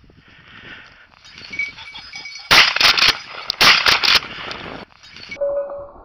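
Ring-necked pheasant rooster flushing from cover, giving two quick bursts of loud, harsh cackling calls, about four calls in each burst.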